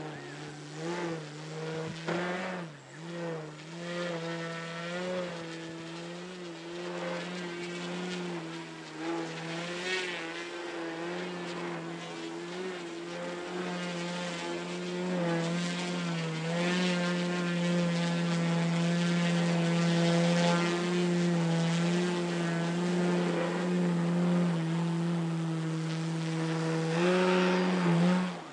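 Motor and propeller of an RC 3D aerobatic plane, a buzzing drone whose pitch rises and falls with the throttle through the first half. It then holds steady and louder for about ten seconds as the plane hangs nose-up on its propeller, and surges briefly near the end.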